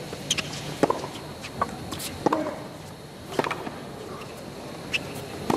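Tennis rally on a hard court: about eight sharp, irregularly spaced knocks of the ball being struck by racquets and bouncing on the court.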